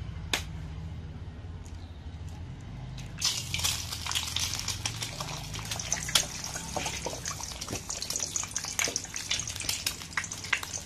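A sharp click, then about three seconds in an egg hits hot oil in a wok and starts sizzling and spitting with dense crackles that carry on.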